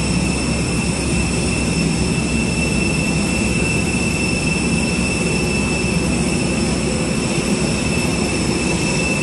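Jet airliner turbine noise on the apron: a steady high whine over a constant low rumble.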